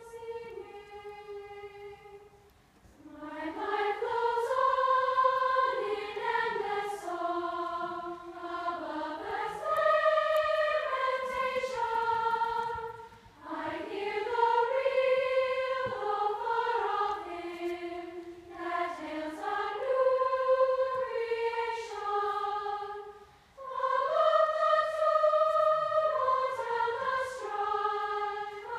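Large women's choir singing in sustained phrases of about ten seconds, with short breaks between phrases.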